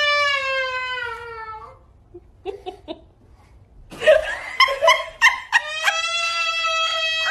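A baby's voice: a long, high-pitched squeal that slides down and fades, a few short giggles, a burst of choppy laughter about four seconds in, then another long, steady high squeal.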